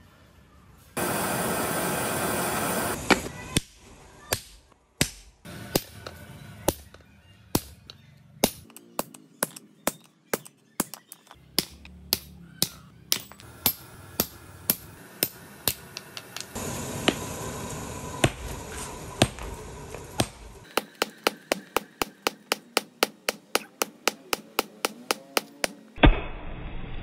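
Hammer blows on red-hot steel on a post anvil, including a handled chisel being struck to cut through a glowing gear. The blows are irregular at first, then come in a fast even run of about four strikes a second near the end, with one very loud blow at the close. A loud steady rushing noise runs for about two seconds near the start.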